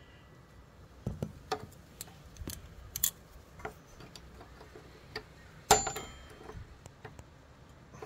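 Scattered small metallic clicks and clinks of slip-joint pliers working the metal clip that holds the ABS sensor line to the fork leg, squeezing it shut, with one sharper, ringing clink about three-quarters of the way through.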